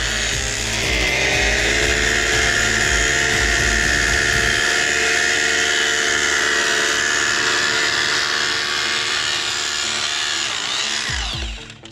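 Bosch Bulldog rotary hammer drilling into a concrete block, running steadily with a high whine and a low pounding in the first half, then stopping about a second before the end.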